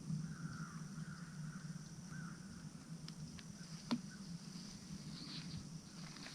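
Quiet woodland ambience: a faint steady high drone, a faint wavering call in the first two seconds, and a few light clicks about three to four seconds in.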